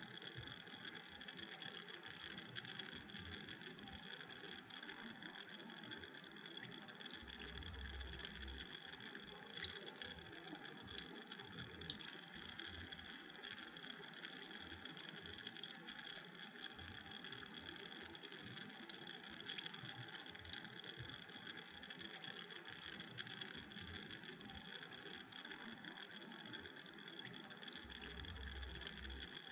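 Carbonated drink fizzing: a steady crackling hiss of many tiny bubbles popping at the surface.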